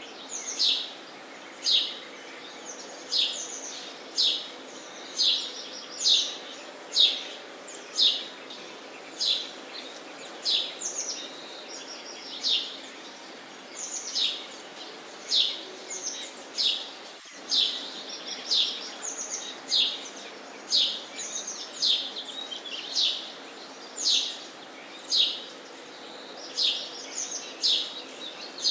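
Sparrow chirping over and over, short sharp chirps about one to two a second, with a faint steady hum underneath.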